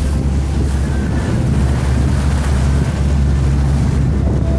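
Motorboat underway through choppy water: wind buffeting the microphone over the steady drone of the engine and the wash of water against the hull.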